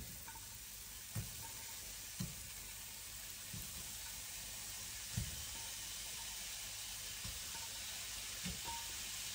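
Shrimp pieces sizzling gently in a hot nonstick frying pan greased with spray oil, the sizzle building slightly as more pieces go in. A few soft knocks are heard as the pieces are dropped into the pan.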